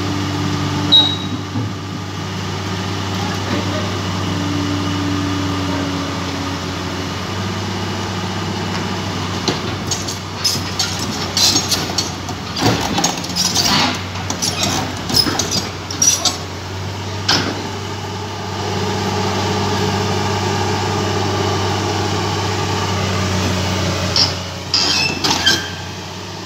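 Komatsu Avance PC200EL crawler excavator's diesel engine running steadily, louder in the second half as the machine climbs the trailer ramp. From about ten seconds in, and again near the end, a string of sharp metallic clanks and squeals from the steel tracks and ramp.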